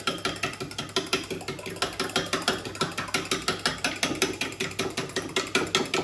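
Fork beating eggs into milk and cream in a glass jug, clinking against the glass in a fast, even rhythm of several strokes a second.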